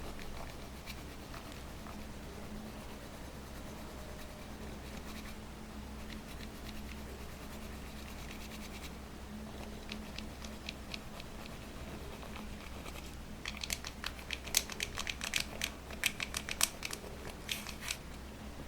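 Slime being worked by hand, giving sparse faint sticky clicks, then dense rapid clicking and popping from about two-thirds of the way in, over a low steady hum.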